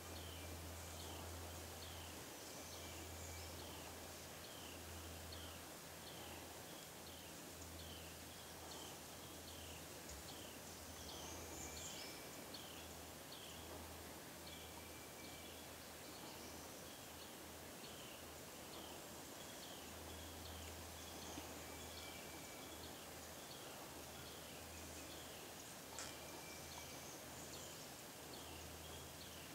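Woodland ambience: a songbird repeats short high chirps about twice a second, other birds give brief whistles now and then, and a low hum comes and goes underneath.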